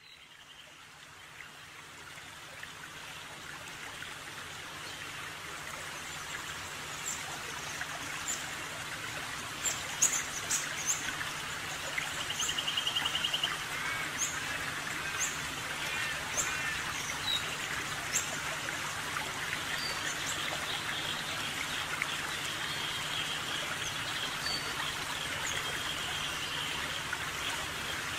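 Running water with short bird chirps and a repeated pulsed trill, fading in over the first few seconds.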